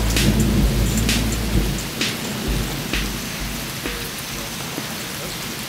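Rain falling steadily in a thunderstorm, with a low thunder rumble that dies away about two seconds in. Occasional sharp ticks sound through the rain.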